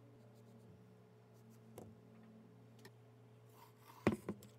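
Steady low hum with a few faint clicks, then, about four seconds in, a glass blender jar is set down on the countertop with two quick knocks.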